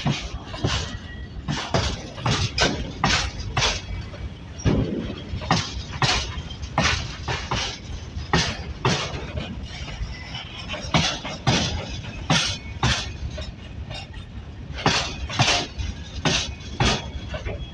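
A passing train's wheels clacking over rail joints: sharp metallic clacks, often in pairs, come about one to two a second over a steady low rumble.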